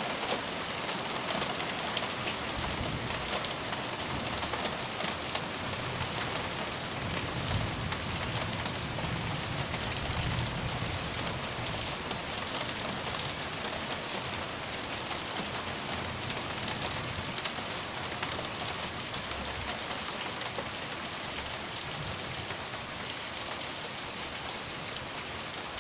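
Steady rain falling on a street and parked cars during a thunderstorm. A low rumble swells and fades about a third of the way in.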